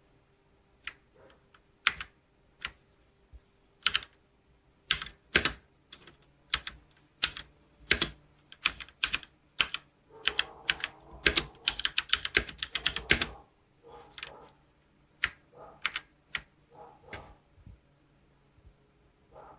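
Typing on a Logitech K845 mechanical keyboard with TTC Brown tactile switches. First come single keystrokes spaced about half a second to a second apart, then a quick run of rapid typing a little past halfway, then slower, softer key presses toward the end.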